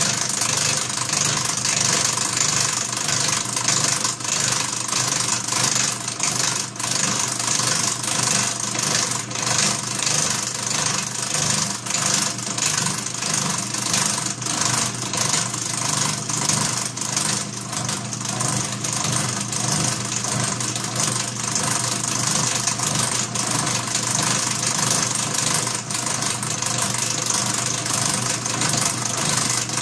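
Atlas horizontal milling machine running in back gear at about 101 RPM, its 2.5-inch cutter taking a light 0.025-inch pass through 303 stainless steel: a steady gear hum with a fast, even patter of the cutter teeth through the metal. The cut sounds good, a sign the machine handles stainless at this depth.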